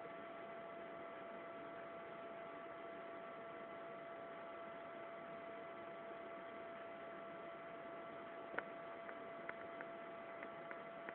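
Steady electrical hum and hiss with a few constant tones, and a handful of short faint clicks in the last few seconds.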